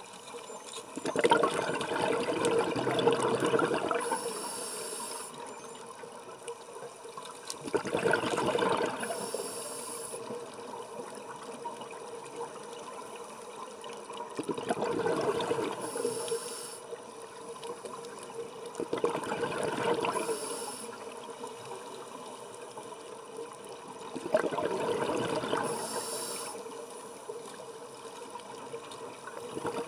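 Scuba diver's regulator breathing underwater: a bubbling exhalation about every five seconds, each followed by a short high hiss of inhalation.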